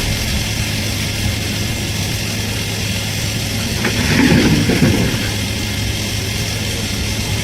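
Cat 385C hydraulic excavator's diesel engine running steadily under working load. About four seconds in there is a louder rough rush of noise lasting about a second.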